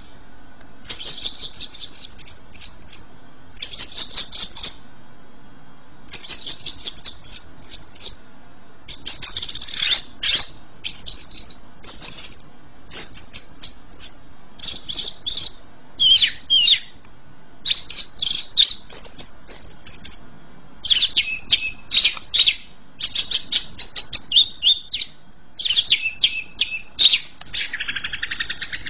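Caged cucak ijo (greater green leafbird) singing in full 'gacor' form: a rapid run of high, chattering, whistled phrases, one burst after another with short pauses between, and a lower warbling phrase near the end.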